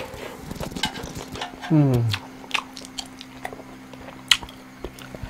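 A man chewing food, with scattered light clicks of chopsticks and dishes. About two seconds in he gives one short voiced sound that falls in pitch.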